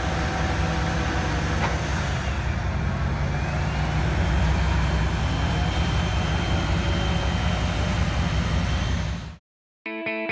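Heavy diesel engine running steadily under load, cutting off abruptly near the end. A moment later, rhythmic guitar music starts.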